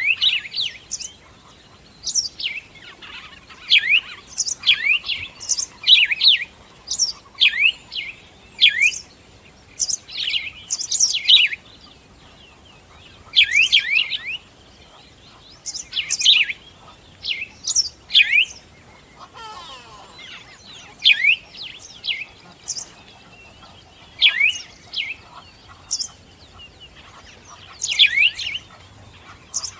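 Birds chirping: short, high calls that slide down in pitch, mostly in quick clusters of two or three, repeating every second or so with a brief pause midway.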